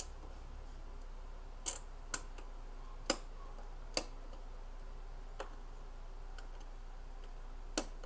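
About half a dozen sharp, irregularly spaced clicks as the dial of a Panasonic mechanical 24-hour timer switch is turned by hand, with a low steady hum underneath.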